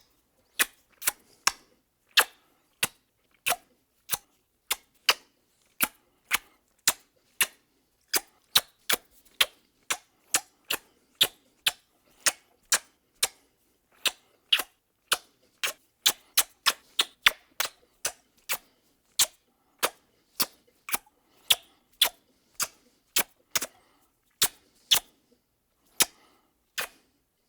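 Kissing sound effects: a long series of short, sharp lip-smacking smooches, one to three a second at an uneven pace.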